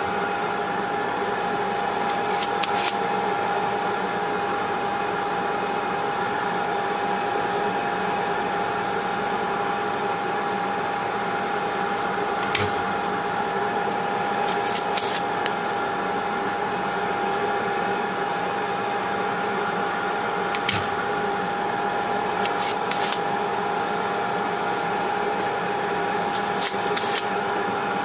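Rework station's hot-air heater and blower running steadily with a constant whine, heating the board through its profile to melt the solder. Short clicks come now and then over it.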